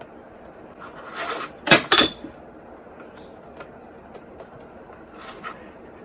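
A small plastic pocket TV being turned and handled on a workbench. There is a brief scraping about a second in, then two sharp clicks close together, and a few faint ticks later.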